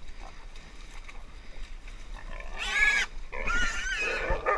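Wild sow, caught and held by hog dogs, squealing loudly twice: a short squeal about two and a half seconds in, then a longer one just after.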